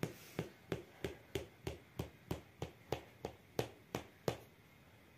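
A fork stabbing into a thick round of bread dough on a metal tray to dock it before baking. It gives a short sharp tap at each stab, about three a second, and stops about four and a half seconds in.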